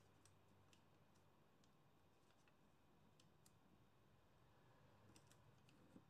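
Faint, scattered clicks and light rustles of origami paper being folded and creased by hand, over near-silent room tone.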